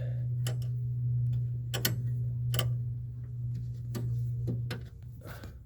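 Scattered sharp clicks and taps as the cap is fitted and turned onto the speed warning cable fitting under the dash. Behind them runs a steady low hum that drops away about five seconds in.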